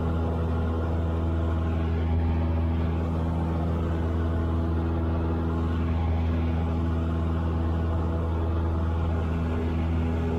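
Cessna 172's piston engine and propeller droning steadily inside the cockpit, holding an even pitch and level.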